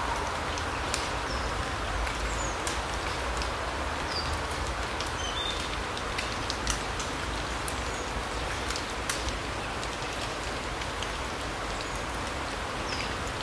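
Autumn larch-forest ambience: a steady, even hiss under scattered light ticks like falling drops or twigs, with a few faint short high chirps from small birds.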